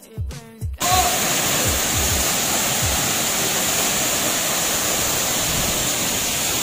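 Background music with a steady beat, cut off abruptly less than a second in by the loud, steady rush of a waterfall plunging into a shallow rocky pool close by.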